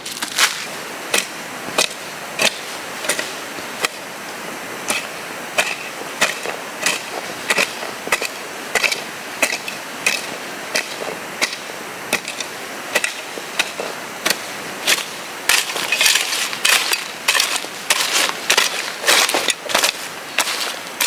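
Repeated sharp strikes of a hand tool, roughly one a second, coming faster and more thickly about three-quarters of the way in.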